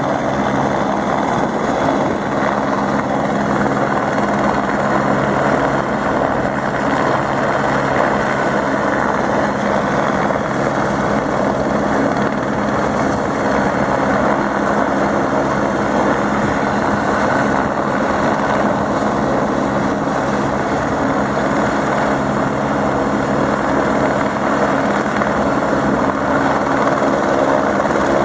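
Rescue helicopter hovering: a steady, loud rotor and engine noise with a constant low hum that holds unchanged throughout.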